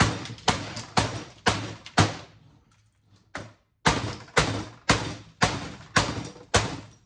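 Hammer striking metal in hard, evenly paced blows, about two a second: five blows, a short pause with one light tap, then six more. The blows are driving a chisel or the hammer's claw to bust a panel off a steel electronics case.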